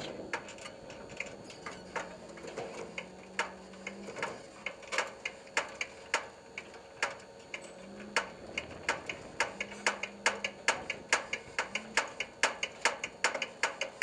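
A run of sharp, irregular clicks that grow louder and come faster toward the end, about two to four a second.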